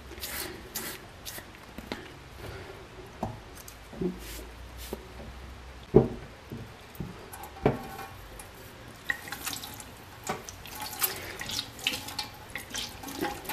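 A damp rag wiping wet acrylic brown wash off a painted armour plate held over a stainless steel sink: soft rubbing strokes and wet sounds in the sink, with a few light knocks, the clearest about six and seven and a half seconds in.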